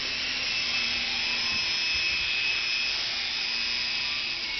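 Blade mCX coaxial micro RC helicopter in flight: its small electric motors and rotors make a steady high whine and whir, swelling slightly about two seconds in and easing off a little near the end.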